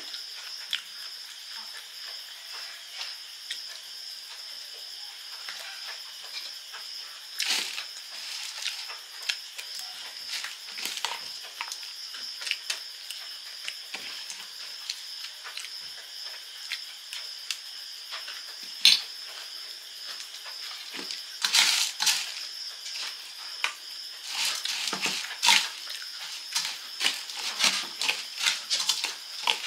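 Close-up eating sounds: crunching and chewing of dry puffed rice and fried fritters, mixed with a steel spoon scraping and clicking on a steel plate. The short clicks come more thickly in the last third. A steady high whine runs underneath.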